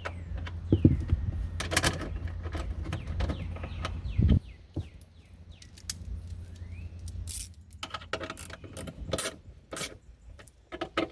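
Metal clicks, clinks and knocks of a Mercedes W124 trunk latch assembly being handled and fitted into the trunk lid, with a few faint squeaks. A low steady hum underneath stops about seven seconds in.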